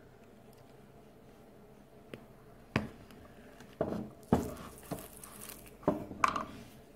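A red-hot kitchen knife melting through a plastic toy's head, with faint crackling and sizzling and a scattered run of sharp clicks and taps, starting about two and a half seconds in.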